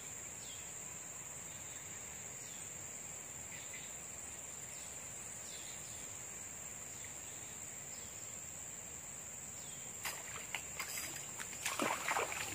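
Steady high-pitched insect drone with short falling chirps every second or so. About ten seconds in, irregular splashing and rustling in the water begin and grow louder.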